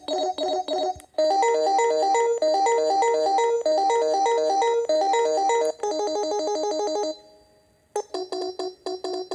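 Panasonic KX-TPA60 cordless handset playing its built-in electronic ringtones one after another as the ringer patterns are scrolled. A pulsing repeated tone gives way to a busier melody of quick notes, then another pattern that fades out, then a new pulsing tone. A sharp click falls at each change, about a second in and again near the end.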